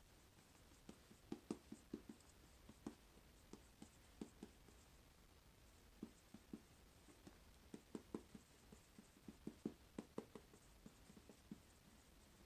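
Faint sound of a pen writing by hand on a pad, in short, irregular strokes and taps.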